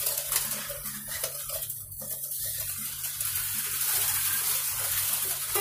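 Slot cars racing around the track: a steady high hiss from their small electric motors and pickups running on the rails, easing off briefly about two seconds in.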